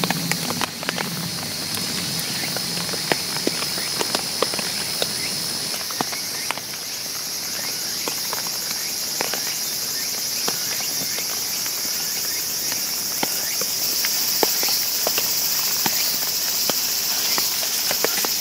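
A steady, high-pitched chorus of insects, with scattered sharp ticks throughout.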